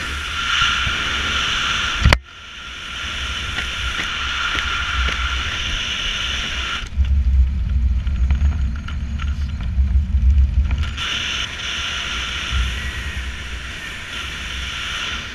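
Wind rushing over a helmet-mounted action camera under an open parachute canopy: a steady hiss over a low buffeting rumble. About two seconds in there is a sharp jolt and a brief dip, and in the middle for a few seconds the hiss fades and the low rumble grows.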